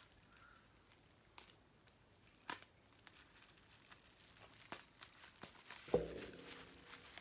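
Faint crinkling and rustling of packaging as a doll is unwrapped, with scattered small clicks and a soft thump about six seconds in.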